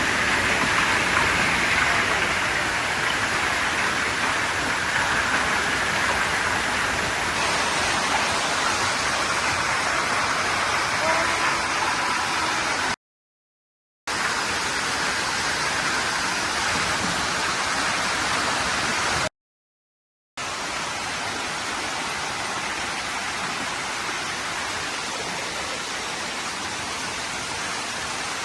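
Heavy hail and rain coming down in a strong-wind storm, a dense, steady rushing noise. It cuts out abruptly twice for about a second, a little before halfway and about two-thirds of the way through.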